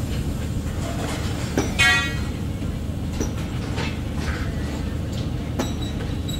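A steady low engine rumble, with a few sharp metallic-sounding knocks and one short, loud horn-like toot about two seconds in.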